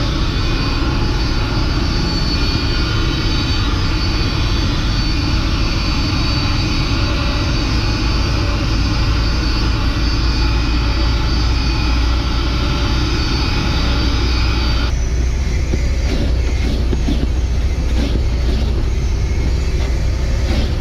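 Suction motor of a portable upholstery spot extractor running steadily with a high whine as it draws dirty water out of a cloth truck seat. About two-thirds of the way through the sound changes abruptly to a wet vacuum's deeper hum, with uneven sucking as a crevice tool is drawn across the damp seat fabric.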